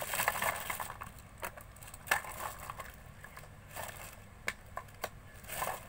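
Slime being handled in plastic cups: a dense crackling in the first second, then scattered sharp clicks and pops.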